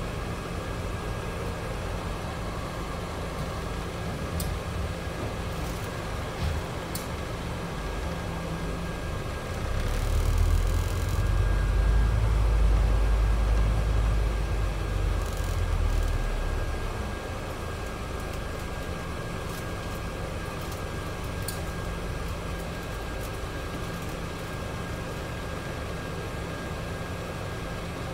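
Scania double-decker bus's five-cylinder diesel engine heard from the upper deck, running steadily with a faint constant whine. About ten seconds in it swells louder and deeper under acceleration for several seconds, then drops back as the bus slows into queuing traffic.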